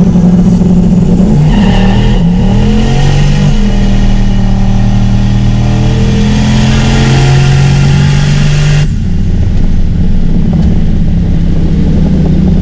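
Car engine running under steady load while driving, heard from inside the car with a rush of road and wind noise. The engine note shifts two to three seconds in, and the higher rush drops away about nine seconds in while the engine keeps running.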